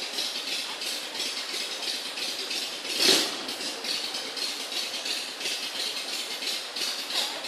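Motorcycle engine running with a rhythmic, rattly chuff, and one brief louder surge about three seconds in.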